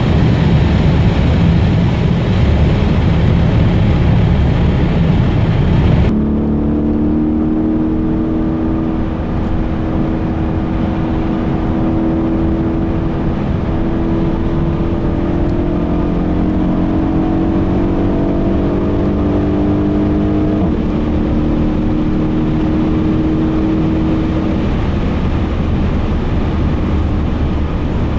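Mercedes E63 AMG twin-turbo V8 heard from inside the cabin near its top speed of about 290 km/h, with the engine buried in loud wind and road noise. After about six seconds it cuts abruptly to the V8 running steadily at a lower cruising speed, its note slowly rising and falling.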